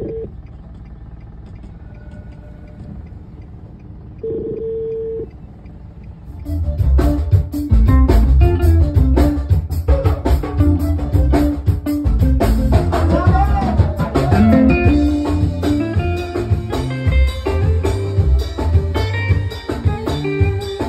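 A small band playing live with drum kit, bass guitar and keyboard, with a heavy bass line and steady drum hits. The full band comes in about six seconds in, after a quieter stretch with two short held notes.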